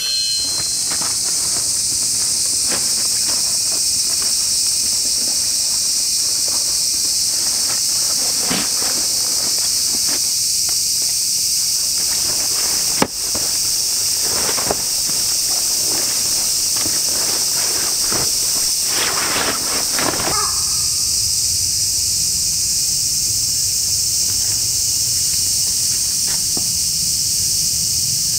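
A dense, unbroken chorus of summer cicadas, steady and high-pitched. A few rustles and footsteps on the forest floor come through underneath, the clearest about two-thirds of the way in.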